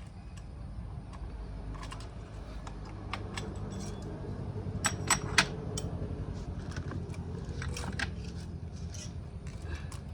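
Metal hand tools and parts clinking and tapping during work on a motorcycle engine, with three sharper clicks about five seconds in, over a steady low rumble.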